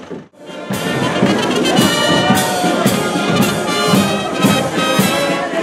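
A marching brass band with drums plays a march, with a steady beat about twice a second. The sound cuts out briefly just before the music starts.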